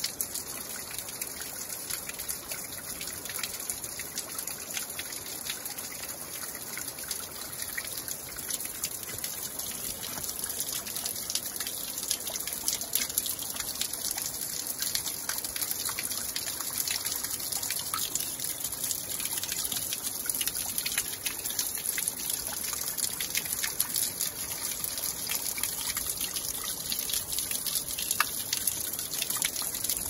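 Water trickling steadily, with many small drips and splashes.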